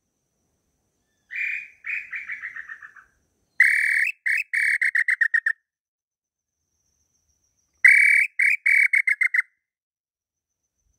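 Inhambu pé-roxo (tataupa tinamou) 'chorão' song blown on a throat-type bird call: three whistled phrases, each a longer opening note followed by a run of quicker notes that fall slightly in pitch. The first phrase, about a second in, is fainter; the next two are louder.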